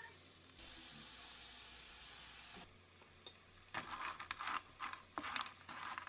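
Shrimp and garlic sizzling in oil in a frying pan. From a little past halfway, clams in their shells clatter against the pan as a spatula stirs them, giving a quick run of sharp clicks and scrapes.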